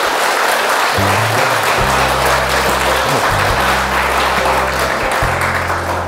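Applause, dense and steady, over closing music whose low bass notes come in about a second in.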